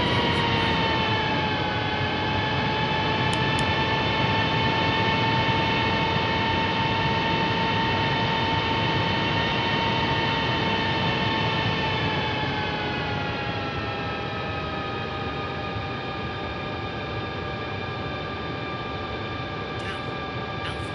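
Jet engine whine with a rumble underneath, heard from inside an Airbus A321neo cockpit while taxiing. The pitch holds steady, then sinks and gets a little quieter about twelve seconds in as the thrust comes back.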